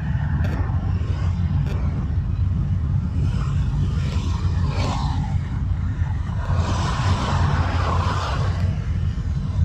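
Driving noise of a moving car on a busy city road: a steady low rumble of engine and tyres, with the noise of nearby traffic swelling for a couple of seconds about seven seconds in.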